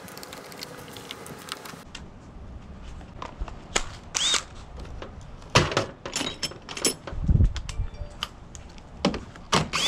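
Hand-tool work on van trim and fasteners: a run of fine rapid clicks, then scattered clicks, clinks and knocks of tools and plastic clips, with a short squeak and a dull thump a little past the middle.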